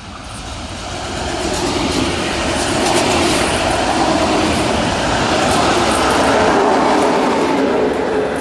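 Loco-hauled S-Bahn push-pull train of x-Wagen coaches passing close at speed, led by its control car. Its wheels make a rushing rumble on the rails that swells over the first two or three seconds and stays loud while the coaches go by.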